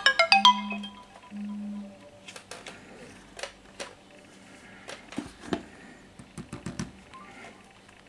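Samsung Galaxy S3 alarm tone, a chiming marimba-like melody, ringing and dying away about a second in, with two short low buzzes under it. Then scattered faint clicks and taps from the phones being handled on the table, with a few soft knocks near the end.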